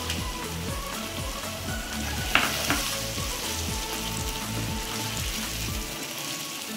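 Chicken korma gravy sizzling and bubbling in a non-stick pan as a wooden spatula stirs it, with water just added to the curry. The spatula knocks sharply against the pan about two and a half seconds in.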